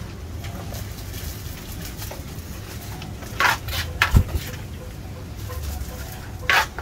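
A plastic bag of papaya salad being handled and filled by hand: short crinkly rustles at about three and a half and six and a half seconds in, and a single dull knock about four seconds in, over a steady low street hum.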